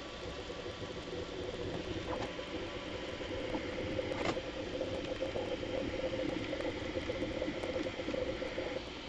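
Bambu Lab A1 3D printer running a print: its stepper motors and fans make a steady, fluttering whir, sped up with the footage. Brief clicks come about two and four seconds in.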